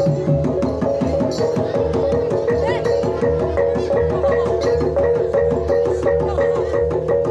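Banyumasan gamelan ensemble playing a tayub piece: mallet-struck keyed instruments ringing out steady pitched notes in a quick, even rhythm, with kendang hand-drum strokes underneath.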